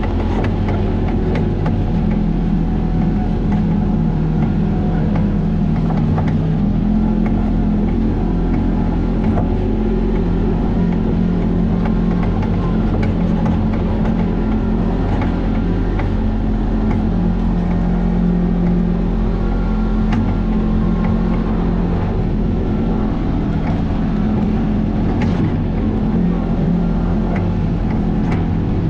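A vehicle engine running steadily under way, its pitch shifting a little, with frequent small knocks and rattles throughout.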